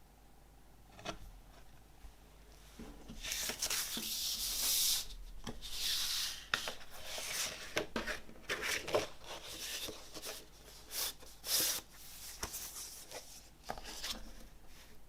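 Paper and cardboard record packaging rubbing and sliding as it is handled: a run of scraping strokes with a few light taps, starting about three seconds in.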